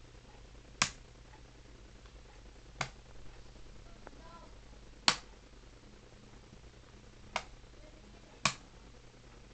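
Five sharp clicks at uneven gaps of about one to two seconds from the incandescent-ballasted F4T5 blacklight fluorescent circuit, over a faint steady mains hum.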